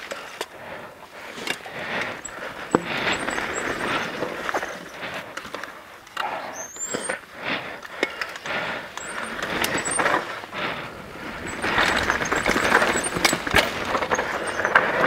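Downhill mountain bike ridden fast over a dirt trail: tyres rolling over dirt and stones, with the bike rattling and many short knocks from bumps in the ground.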